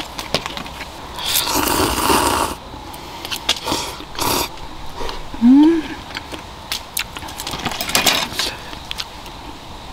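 A person slurping instant cup noodles with chopsticks, three long noisy slurps with light clicks of the chopsticks against the cup between them, and a brief rising 'mm' a little past halfway.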